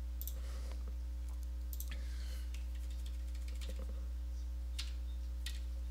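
Faint, irregular clicks from a computer keyboard and mouse being worked, over a steady low hum that is the loudest sound throughout.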